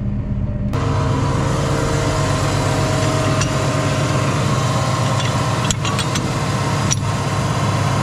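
Farm tractor engine idling steadily, the sound filling out suddenly just under a second in, with two short sharp knocks near the end.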